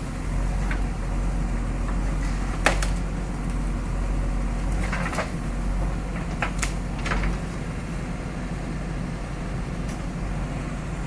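Backhoe loader's diesel engine running steadily, with a few short sharp knocks spread over the first two-thirds.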